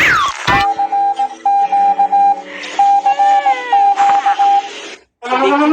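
Synthesized emergency-alert tones. A wailing siren cuts off, then an electronic beep sounds in irregular broken pulses over lower steady tones, with a few falling glides in the middle. After a brief silence near the end, a civil-defence-style siren starts winding up.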